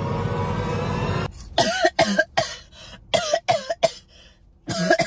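A woman coughing in a quick series of short, forced coughs, with a brief pause before one more. The coughs are put on deliberately over food as a prank. They follow about a second of steady hissing noise.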